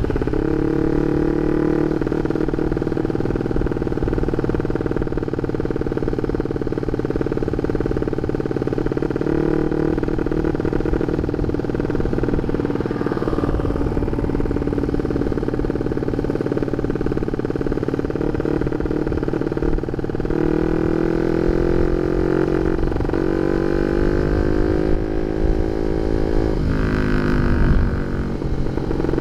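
Honda Sonic 150R single-cylinder four-stroke motorcycle engine running through an aftermarket CLD Monster exhaust, mostly at a steady pitch. In the last third it revs up several times in rising sweeps, the highest near the end.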